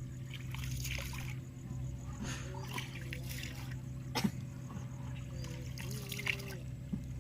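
River water trickling and splashing, over a steady low hum, with one sharp splashing stroke about four seconds in.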